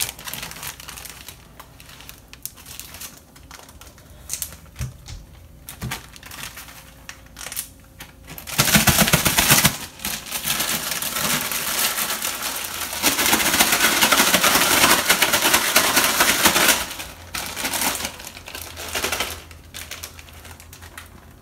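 Plastic zip-top bag rustling and crinkling as it is handled and shaken, with a long loud stretch of dense rustle from about nine to seventeen seconds in and lighter handling noise around it.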